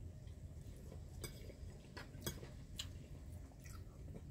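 Cutlery clinking lightly against plates while eating: about five faint, scattered clicks over a low, steady background hum.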